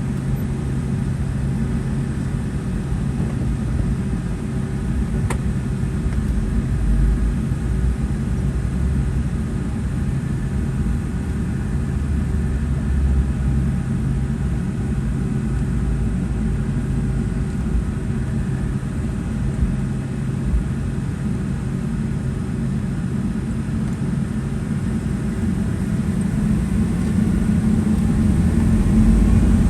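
Boeing 757-200 cabin noise: a steady low rumble from the jet engines and airframe, with a faint steady hum. There is a single click about five seconds in, and the rumble grows louder near the end.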